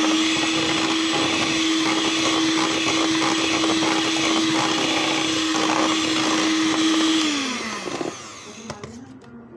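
Electric hand mixer beating flour into cake batter in a bowl, its motor running at a steady whine, then winding down and stopping about seven seconds in.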